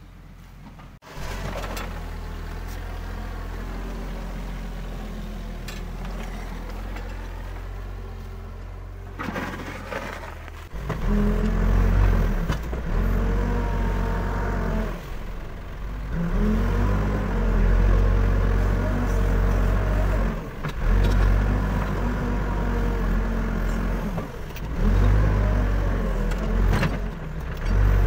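Backhoe loader's diesel engine running while it works, moderate at first, then much louder from about 11 seconds in, revving up and dropping back again and again as it digs and pushes.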